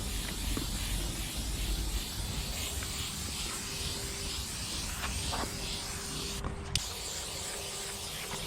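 Aerosol spray-paint can with a wide Astro Fat Cap nozzle hissing as paint is sprayed, swelling and fading rhythmically. The spray stops for a moment about two-thirds of the way through, then starts again.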